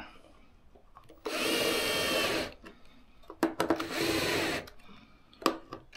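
Power drill-driver driving screws into pre-drilled pilot holes: two short runs of the motor, the first about a second in and the second a little past the middle, with a few sharp clicks between and after them.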